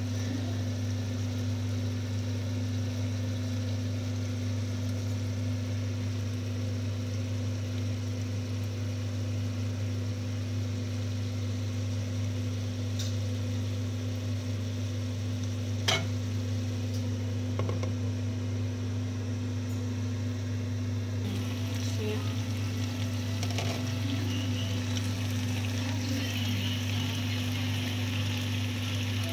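Chicken livers and potato chunks simmering and sizzling in a sauce in a non-stick frying pan as the sauce reduces, over a steady low hum. A single sharp click about sixteen seconds in.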